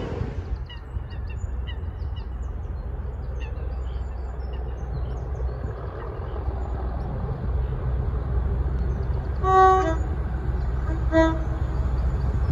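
A Class 37 diesel locomotive approaching, its low engine rumble growing louder, sounds its two-tone horn about ten seconds in: a short high note, then a lower note about a second and a half later.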